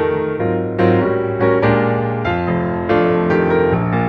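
Background piano music: chords struck one after another at a steady pace, each ringing on until the next.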